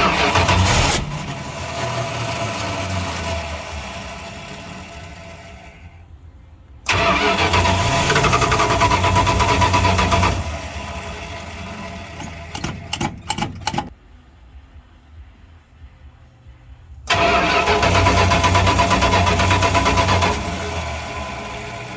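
1976 Dodge D200 truck engine fires three times, each time running for a few seconds and then dying away, with some sputtering before the second run stops. It runs only on gas squirted into the carburettor and not on fuel from the pump, so it will not keep running.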